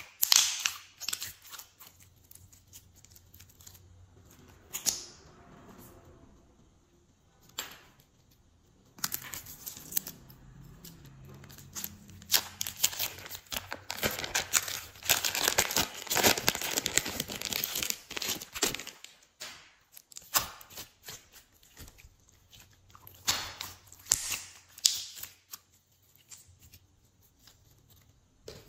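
Glossy slime being squeezed, stretched and pressed by hand, making sticky crackling and popping clicks in bursts, densest through the middle.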